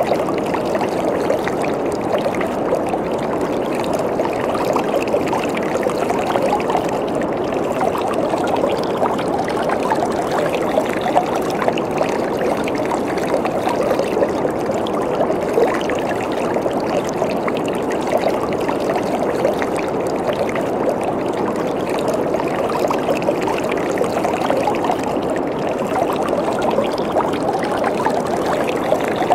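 Waterfall: water falling and splashing steadily, a constant rushing with fine splashy detail.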